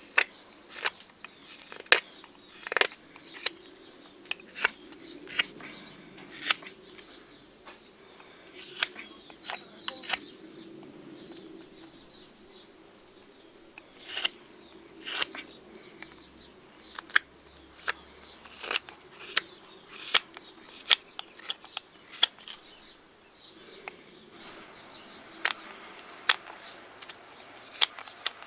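Knife carving a spoon blank of seasoned alder: sharp, irregular clicks and snaps as each cut takes a shaving off the dry wood, about one or two a second with short pauses. Faint birdsong in the background.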